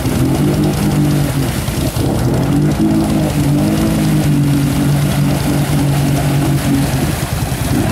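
ATV engine revving high and held there, its pitch wavering up and down as the wheels spin in deep mud: the quad is stuck in a mud hole and being throttled out with the rider off beside it.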